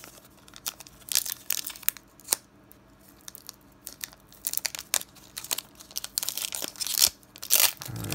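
Foil Pokémon TCG booster pack wrapper crinkling as it is handled and torn open. The sharp, irregular crackles grow denser and louder over the last few seconds.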